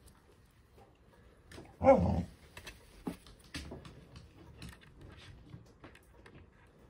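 Hard plastic clicks and packing rustles as a cordless mini chainsaw is handled and lifted from its box and foam insert. About two seconds in there is one loud, brief pitched sound.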